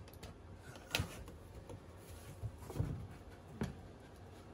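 A few sparse, light clicks and knocks, about three spread across a few seconds, from hand work on a wall panel being trimmed and handled.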